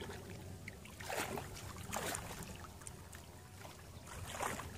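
Hands splashing and sloshing in shallow muddy water while groping for crabs, in several short splashes separated by quieter stretches.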